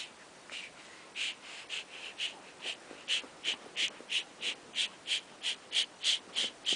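A dog panting: short breathy puffs, irregular at first, then settling into a steady rhythm of about three a second.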